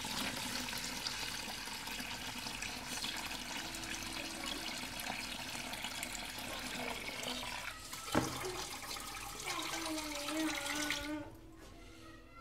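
Tap water running in a steady stream into a plastic bowl of rice, splashing on the water and grains. The flow stops about eleven seconds in.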